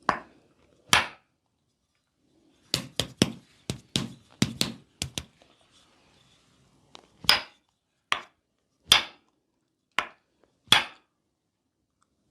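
Hands striking a body in percussive massage: a series of sharp smacks, two single strikes, then a quick run of about nine, then five more spaced about a second apart.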